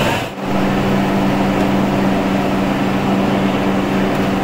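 Factory machinery running steadily: a low, even hum with a few held tones over machine noise. The sound changes abruptly just after the start, with a brief dip in level.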